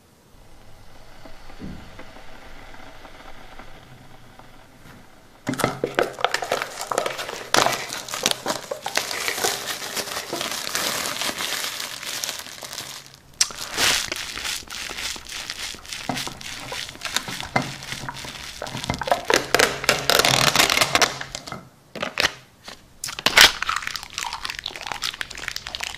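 Clear plastic shrink-wrap being torn off an instant noodle cup and crumpled in the hands: a dense crinkling and crackling that starts about five seconds in after a quieter start, breaks off briefly, then picks up again near the end as the cup's packaging is handled.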